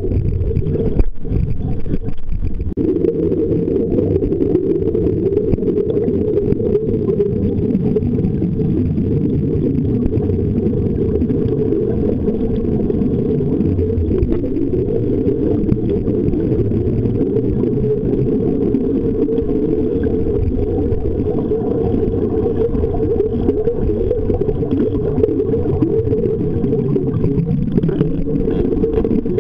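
Steady low rumble of water heard underwater through a camera's housing, with no clear strokes or breaks.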